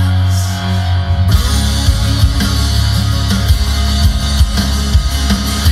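Rock music with electric guitar playing through a pickup truck's factory Alpine stereo, recorded on a phone in the cab, while the balance is shifted between the front speakers to compare the side with an added JL Audio tweeter against the stock side. About a second in, the drums come in and the treble brightens.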